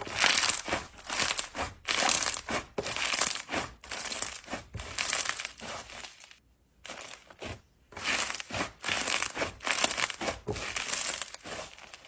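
Fluffy, grainy white slime squished and pressed by fingers, each press giving a crisp crackling burst, about one a second, with a short pause in the middle.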